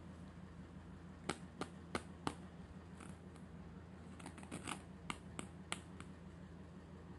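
Small plastic toy hairbrush and its cover handled by hand: a dozen or so light plastic clicks and taps, spaced at first, then a quicker cluster around the middle.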